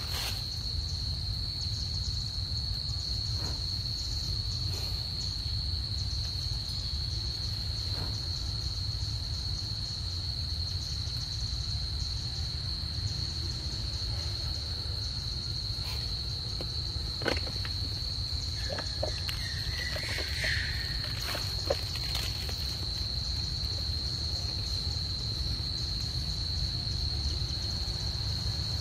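Insects droning with one steady, unbroken high-pitched tone, over a low steady rumble. A few faint clicks and a short chirp come about two-thirds of the way through.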